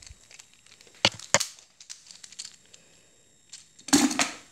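Handling noise from toys being picked up and moved: two sharp clicks about a second in, small ticks, then a brief louder rustle near the end.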